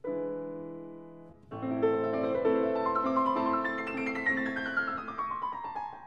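Background piano music: a held chord that fades, then from about a second and a half in a flowing run of notes that steps downward in pitch near the end.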